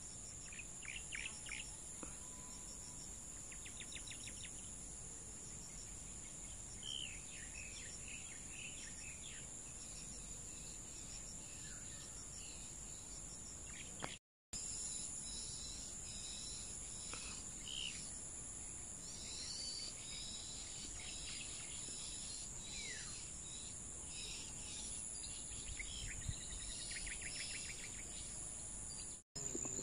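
Insects shrilling in a steady, high, even drone, with scattered bird chirps and short trills over it. The sound cuts out for a moment about halfway through and again near the end.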